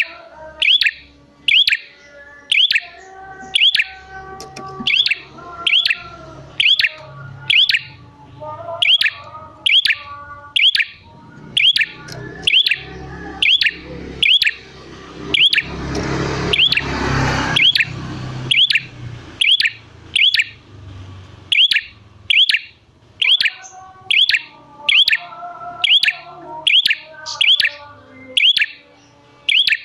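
Prenjak (prinia) calling: a sharp, high note repeated about one and a half times a second, with softer, lower chirping notes in between. A brief rushing noise swells a little past halfway.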